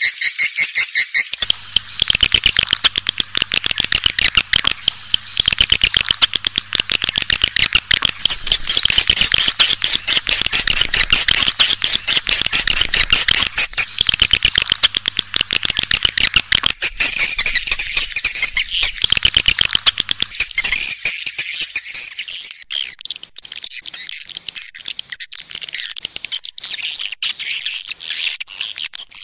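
Swiftlet call sound of the kind swiftlet farmers play to lure birds into a nest house: dense, rapid, high-pitched twittering of many swiftlets. It thins out somewhat after about twenty seconds, and a faint low hum runs under it until then.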